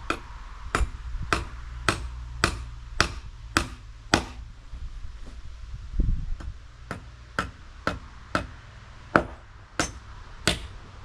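Hammer driving nails into wooden deck framing: sharp ringing blows about two a second, with a short break about four seconds in and a duller, heavier thud at about six seconds before the hammering resumes.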